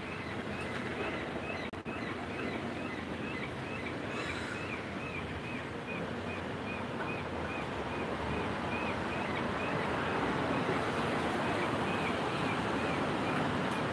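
Wind through street trees over steady city street noise, swelling over the last few seconds as a van and a car drive by. A short high chirp repeats about twice a second throughout.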